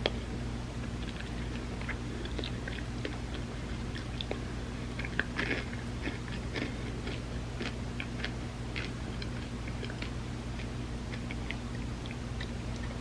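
Close-miked chewing of a soft layered tortilla dessert with chocolate and peanut butter, heard as many small irregular mouth clicks and smacks over a low steady hum.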